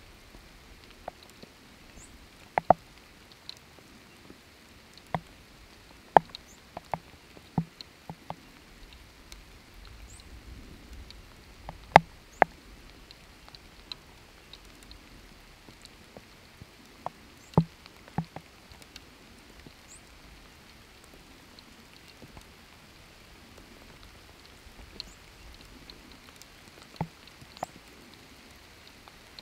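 Scattered single raindrops dripping, sharp irregular plops about a second or two apart over a faint steady hiss; the drips grow sparser in the second half.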